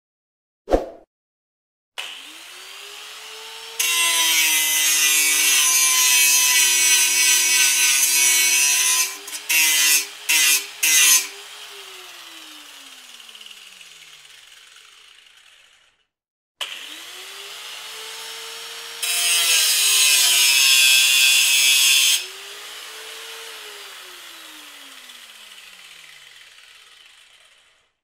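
A short thump, then an angle grinder starts up with a rising whine, runs free, and bites into metal with a loud grinding hiss for about five seconds, followed by three or four short touches of the disc on the metal. It then winds down with falling pitch. The cycle repeats: start-up, free run, about three seconds of grinding, and a long spin-down.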